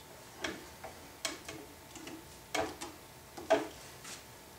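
Wooden handscrew clamps being handled and set on a glued-up blank: a run of about eight irregular, sharp wooden knocks and clicks, the loudest about three and a half seconds in.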